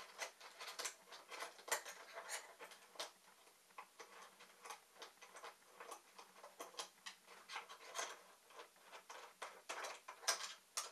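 Faint, irregular clicks, ticks and light scrapes of a rail guide being taken apart by hand: its thumb screws being unscrewed and the rail bars shifting on the hand punch press's bed, with a few louder clicks near the end.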